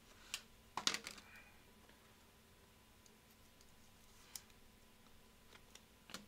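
A few faint, sharp clicks and taps of a trading card and a rigid plastic top loader being handled as the card is slid into it. The loudest come about a second in, with a faint steady hum underneath.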